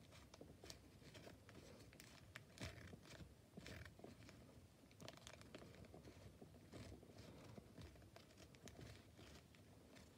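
Faint crinkling and light tapping of a tape-covered paper cutout doll being jiggled by hand, its paper legs brushing and tapping on a paper towel.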